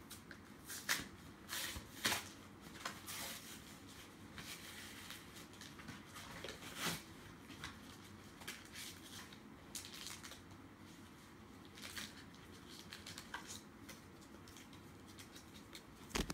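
A trading-card blister pack of plastic and cardboard being torn open by hand: scattered crinkles, rips and snaps at irregular intervals, the sharpest about a second and two seconds in and again just before the end.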